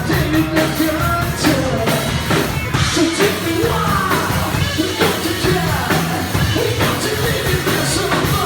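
Rock band playing loud and live at a sound check, with sung and shouted vocals over drums.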